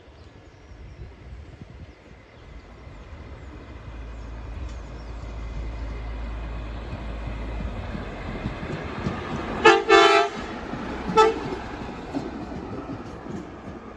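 Bus-type rail inspection car approaching and passing, its engine running and wheels rumbling on the rails. About ten seconds in its horn sounds twice, a longer blast and then a short toot, the loudest sounds here.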